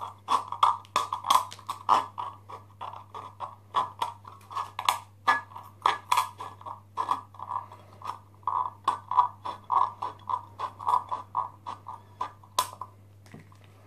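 Green-handled hand snips cutting around the thin metal wall of a food can in short, quick snips, about three a second, each a sharp metallic click. The snipping stops shortly before the end.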